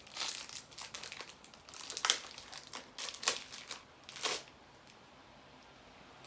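Crinkly plastic candy wrapper being handled and torn open for about four and a half seconds, in a series of crackling bursts, the loudest near the end, then stopping.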